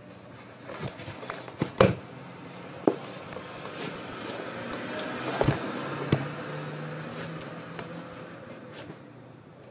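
Socked feet slipping in and out of black canvas plimsolls: soft rustling of sock fabric against the canvas, with several dull knocks as the rubber-soled shoes tap and shift, the loudest just under two seconds in.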